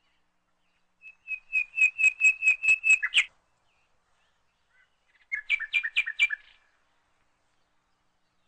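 A songbird singing two phrases of rapid, repeated high chirps, about five notes a second. The first starts about a second in, runs for two seconds and ends on a sharper note. A shorter phrase follows about five seconds in.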